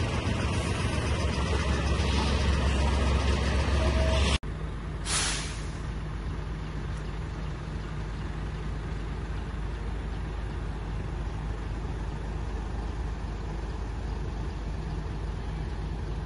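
Diesel cargo truck engine idling close by with a steady low rumble. The sound cuts off abruptly about four seconds in, a short air-brake hiss follows a second later, and then a quieter steady low rumble of idling trucks.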